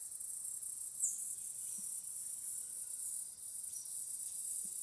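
A steady, high-pitched insect chorus, a dense shrill buzzing trill, with one brief high chirp about a second in.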